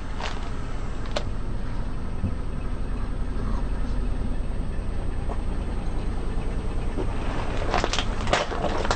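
Car engine running low and steady at slow speed, with a few sharp cracks: right at the start, about a second in, and several near the end, as objects crunch under the tyres.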